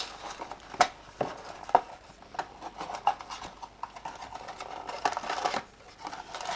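A small cardboard mystery-figure box being handled and opened by hand: scattered light taps and clicks, with a short rustle about five seconds in.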